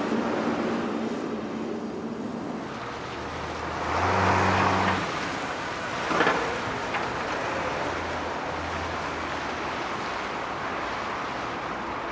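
Motor vehicle engines running over steady traffic-like noise, with one engine growing louder for about a second around four seconds in, and a brief sweeping sound a couple of seconds later.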